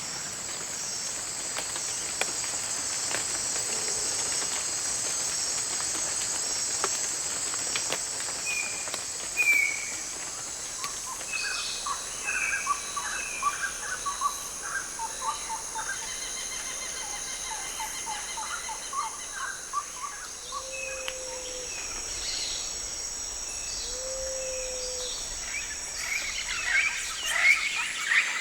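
Tropical forest ambience: a steady high-pitched insect drone with birds calling over it, short chirps and quick series of notes, joined twice in the second half by a short low hoot.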